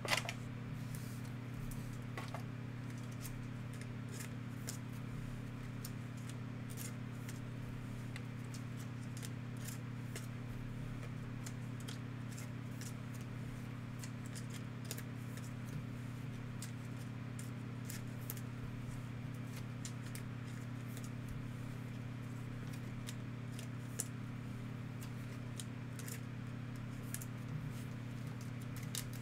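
Hands handling trading cards and clear plastic card holders: scattered light clicks and rustles over a steady low electrical hum.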